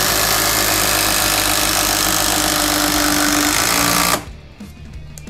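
Two Makita impact drivers driving screws into wood at the same time: the 18 V DTD171's mechanical hammer-and-anvil impacts hammering loudly alongside a hydraulic oil-pulse impact driver. Both stop abruptly about four seconds in.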